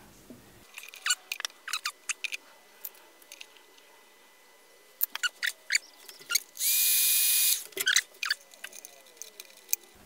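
Small clicks and rustles of wire and terminal handling, then a heat gun running for about a second, a steady hiss with a whine that rises briefly as its motor spins up, used to shrink heat-shrink tubing over a wire end.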